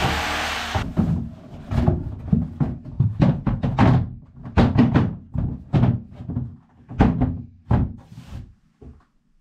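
A cordless jigsaw cutting a thin board stops about a second in. It is followed by a string of irregular knocks and thuds, some with a short ring, as the thin board is laid into a wooden floor frame and shifted and pressed into place.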